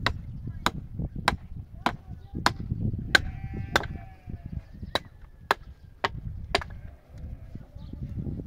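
A hand tool striking again and again, a sharp chop roughly every 0.6 seconds, eleven strikes in all, with a short break about halfway through.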